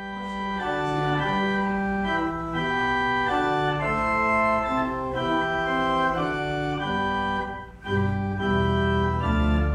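Organ playing slow, sustained chords as a short instrumental interlude. The sound drops out briefly about eight seconds in, then resumes with deeper bass notes.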